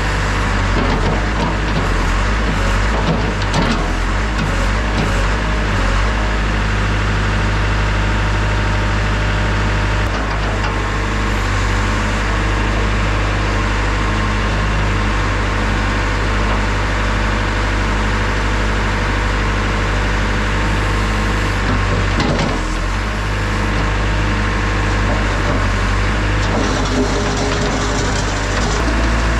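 JCB backhoe loader's diesel engine running steadily at a constant speed.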